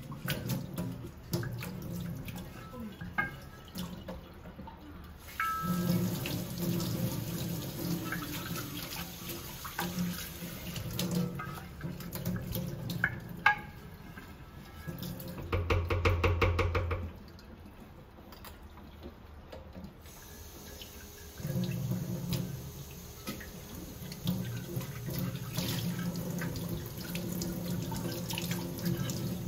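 Kitchen tap water running into a stainless steel sink while a mini tamagoyaki pan is scrubbed with a bristle brush. About halfway through comes a short burst of rapid scrubbing strokes, then a lull, then water runs over the pan again.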